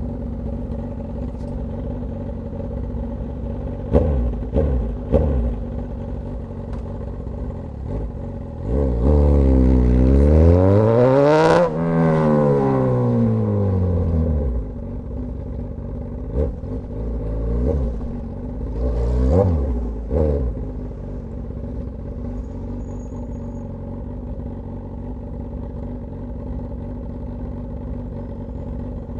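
Straight-piped Suzuki GSX-S1000 inline-four idling, with a few quick throttle blips about four seconds in. Near the middle it revs in one long climb for about three seconds and falls back. After more blips and another shorter rev around twenty seconds in, it settles back to a steady idle.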